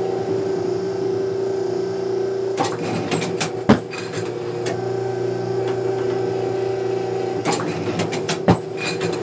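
Automatic clay-target trap machine cycling twice, about five seconds apart: each time a run of mechanical clicks and clatter ends in one loud, deep bang as it throws a clay target. A steady hum runs underneath.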